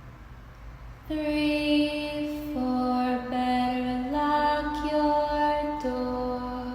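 A woman singing a slow, wordless creepy tune in long held notes that step from pitch to pitch, coming in strongly about a second in after a fainter held note.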